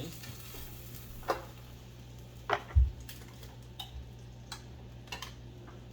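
Spareribs sizzling in a toaster oven, with scattered sharp pops and crackles of spitting fat over a steady low hum. A dull knock comes a little before the middle.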